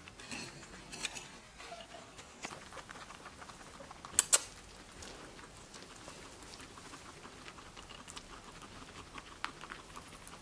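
Guinea pigs moving about and eating pea flakes: scattered faint crackles and ticks, with two sharp clicks close together about four seconds in.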